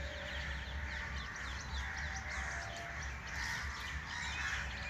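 Birds chirping busily, with crows cawing among them, over a steady low rumble.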